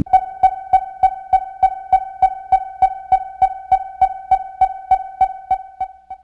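Electronic music: a single high synthesizer note repeated about three times a second, each with a short click at its start, fading away gradually towards the end.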